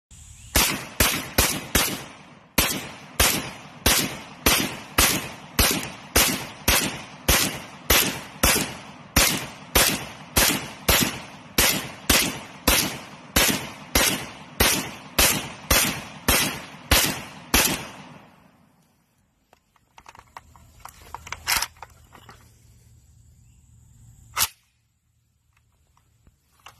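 3D-printed AK-pattern rifle in 7.62x39 firing about thirty single shots at a steady pace of roughly two a second, then stopping. A few faint clicks and one sharper click follow.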